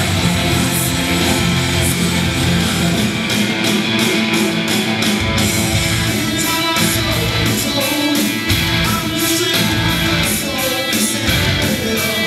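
Loud rock music with distorted electric guitars and a steady, driving drum beat.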